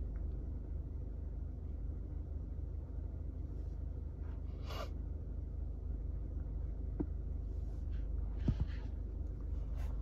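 Steady low electrical or mechanical hum of a quiet room, with a few faint brief noises, one about halfway through and a couple of small clicks near the end.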